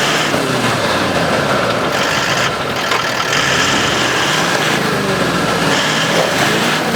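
A 4WD's engine running under load, its pitch rising and falling repeatedly as it is revved, over a steady noisy rumble.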